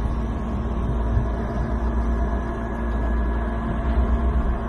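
A steady low hum with faint steady tones above it, keeping an even level throughout.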